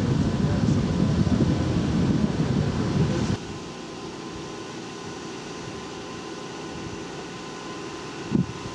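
Standing Vivarail Class 230 diesel-electric train idling, its underfloor machinery giving a steady hum. It is loud and rough for the first three seconds, then drops suddenly to a quieter, steadier hum. There is one short thump near the end.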